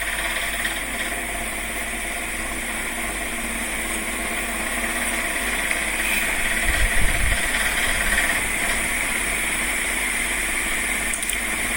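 Steady machine-like background hum with a hiss, with a brief low rumble about seven seconds in.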